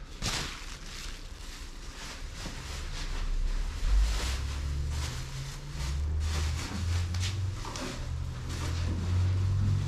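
Plastic bag rustling and crinkling in short bursts as packaging is handled. From about three seconds in, a low, uneven rumble comes in under it.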